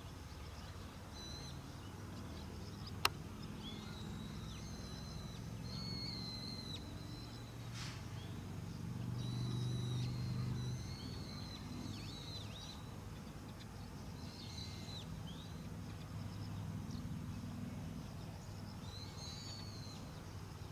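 Outdoor ambience of birds calling again and again in high chirps over a steady low hum that swells around ten seconds in, with one sharp click about three seconds in.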